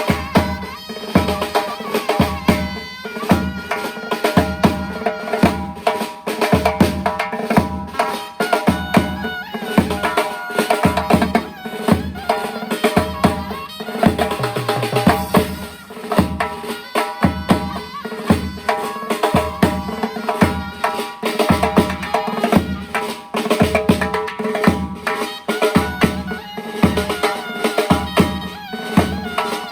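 Uzbek surnay, a double-reed shawm, playing a folk melody in long held notes over a steady, regular drum beat.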